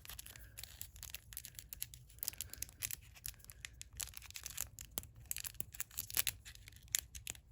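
Packaging being handled and opened by hand: a run of irregular small crinkles and crackles, like a plastic wrapper or sleeve being worked at.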